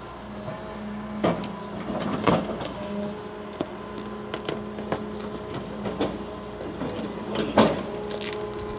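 Large excavator's engine running steadily under a steady hum, with several sharp metal clanks and knocks as it works, the loudest near the end.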